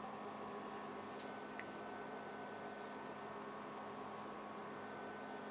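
A sharp knife slicing and trimming fat and connective tissue from a beef chuck roast: a few faint, scratchy strokes over a steady background hum.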